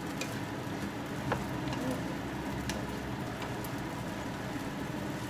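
Yangzhou fried rice sizzling with a steady crackling hiss in the pan as it is stir-fried with a wooden spatula, with a few light scrapes and knocks of the spatula against the pan.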